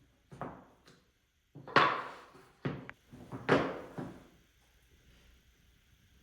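Wooden boards being handled and set down on a workbench: a run of knocks and clatters, the two loudest about two seconds in and again a second and a half later, then quiet room tone.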